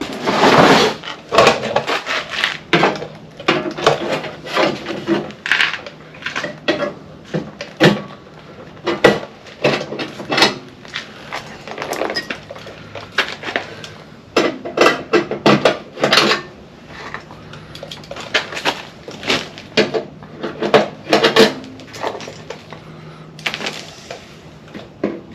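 Irregular metallic clanks, taps and clicks of a sheet-metal rocker panel being handled and fitted against a truck body.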